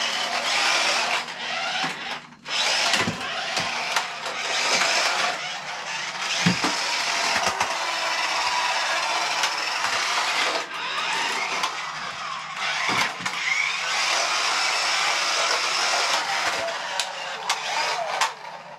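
Small electric drive motor and gears of a 1980s Nikko 1/18-scale Porsche 956 radio-control car running at low speed as it drives across a tile floor. The motor cuts out briefly about two seconds in and again around eleven seconds.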